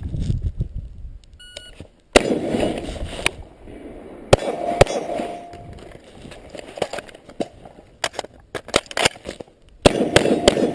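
A shot timer beeps once, then a PMM SCAR select-fire rifle fires: a loud first shot about half a second later, then more shots and quick strings of shots through the rest, with a last loud volley near the end.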